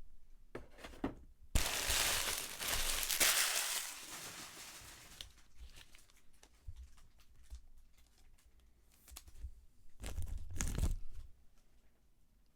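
Packaging crinkling and tearing in spells: a short one near the start, a long loud one from about a second and a half in lasting several seconds, and a shorter one near the end.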